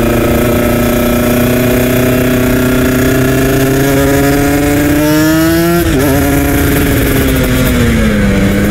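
Kawasaki Ninja RR 150 two-stroke engine under way, its revs climbing slowly for about five seconds. A quick upward flare follows, then the revs drop sharply about six seconds in and ease down to a steadier, lower pitch near the end.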